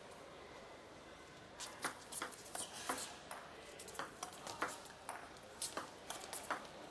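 Table tennis rally: the celluloid ball clicking sharply and quickly against rubber-faced bats and the table top, starting about one and a half seconds in after a quiet moment of hall hush.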